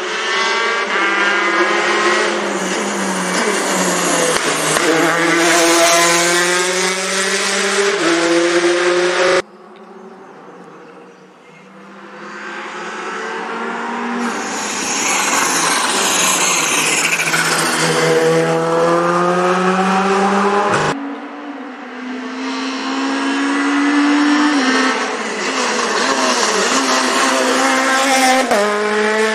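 Rally cars at full throttle, engines revving hard with the pitch climbing and dropping back at each gear change. The sound cuts off abruptly twice, about nine and twenty-one seconds in. Each time a new car's engine starts up again, the second one building from faint to loud as it approaches.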